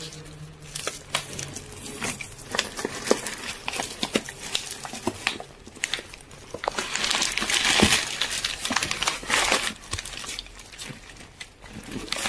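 Clear plastic wrap on a bag of dry dog food crinkling and crackling as the bag is handled. It is loudest and densest about seven and nine seconds in.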